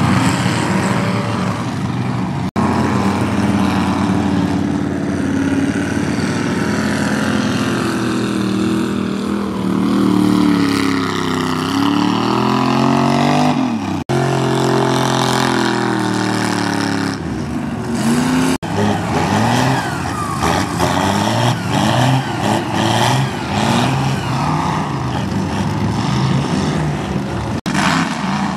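Mud bog truck engine revving hard, its pitch climbing and falling again and again, in quicker repeated bursts in the latter part. The sound breaks off for an instant a few times.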